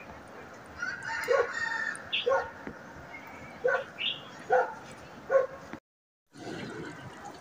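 A dog barking, single barks about a second apart, five or so in all. The sound cuts out briefly near the end.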